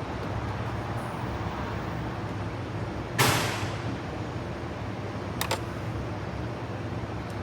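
Small clicks and knocks of hand work on a car's dashboard while the instrument cluster is screwed back in, over a steady low hum. About three seconds in there is one sudden loud noisy burst that fades within half a second, and a pair of small sharp clicks comes a couple of seconds later.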